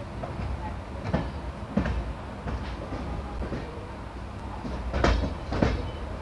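Humsafar Express coach running along the track, heard from its open doorway: a steady rumble of wheels on rail with sharp clacks as the wheels strike rail joints, coming in pairs about a second in and again near the end.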